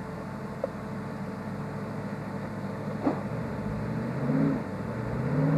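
An off-road vehicle's engine running steadily, then revved twice in quick rises and falls near the end, with a couple of sharp clicks.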